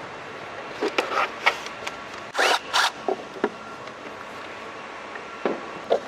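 Plastic engine-bay trim and covers of a BMW E46 being handled and pulled loose: scattered clicks and scrapes, with two short rasping bursts a little over two seconds in.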